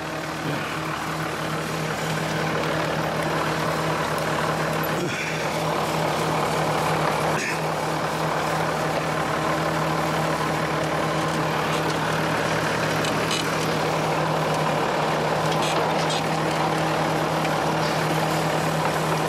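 Tractor engine idling steadily, with a couple of light knocks about five seconds in and again a few seconds later.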